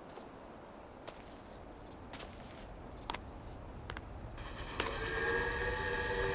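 Crickets chirring steadily with sharp single footsteps about once a second. About five seconds in, a distant train whistle begins to sound, a steady chord of several tones that grows louder.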